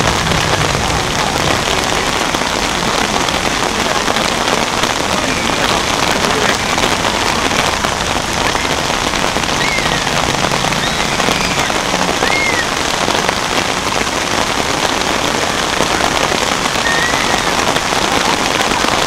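Steady rain falling on the umbrellas of a waiting crowd.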